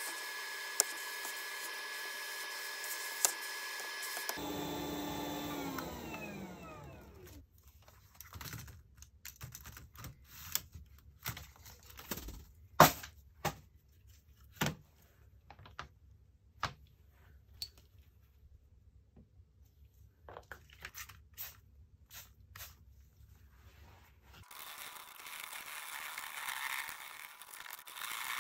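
Atten hot air rework station handpiece blowing with a steady hiss and whistle, then switched off about four seconds in, its fan winding down with a falling hum. Then a long run of sharp plastic clicks and knocks as the heat-staked keyboard and the plastic top-case frame are handled, and near the end a few seconds of raspy brushing.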